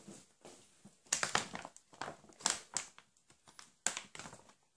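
Packaging of a large dog-biscuit bag crinkling and rustling in irregular bursts as hands grip and pull at it, trying to tear it open without success.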